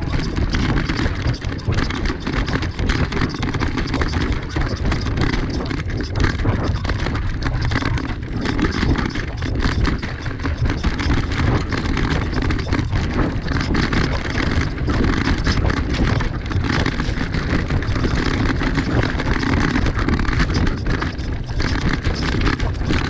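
Mountain bike riding fast down rocky dirt singletrack: continuous tyre rumble with constant clattering and rattling of the bike over stones.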